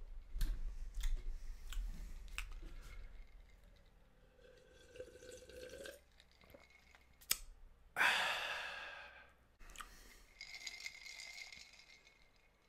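A man drinking from a glass jar close to the microphone: handling knocks and swallowing, a sharp click about seven seconds in, then a loud breathy exhale after the drink that fades over a second or so, and a softer breath near the end.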